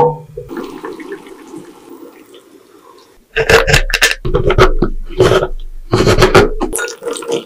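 A wire whisk stirring liquid batter in a glass bowl, fading over the first few seconds. From about three seconds in, a cleaver chops white chocolate on a cutting board in a quick run of hard chops.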